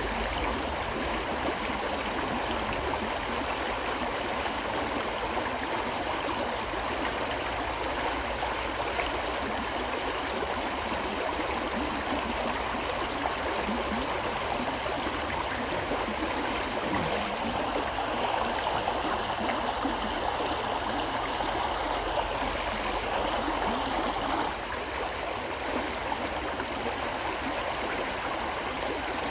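A river flowing steadily: an even, continuous rush of moving water, dropping slightly in level about 24 seconds in.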